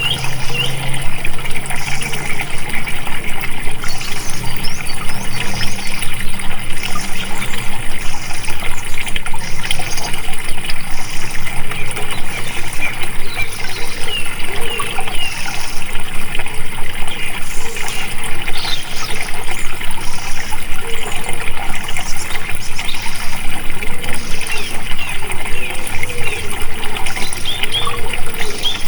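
Flowing water: a loud, steady rush with fast churning ripples, and short high chirps scattered through it.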